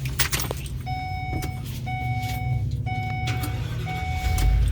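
Car's warning chime sounding about once a second, each a steady mid-pitched tone with a short gap between, over the low rumble of the car.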